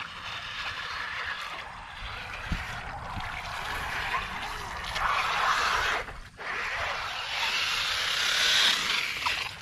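Radio-controlled off-road car driving through shallow water in a ditch, its wheels churning and splashing, then running out onto concrete near the end.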